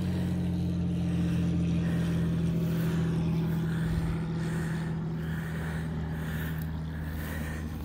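Steady low engine hum, with a soft hiss repeating about twice a second over it.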